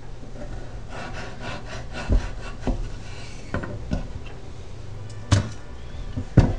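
Chef's knife slicing through firm peeled butternut squash, with a few scraping strokes and about six irregular knocks of the blade and squash on a wooden cutting board, the loudest near the end.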